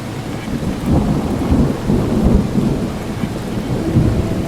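Thunder rumbling over steady rain, the rumble swelling about a second in and again near the end.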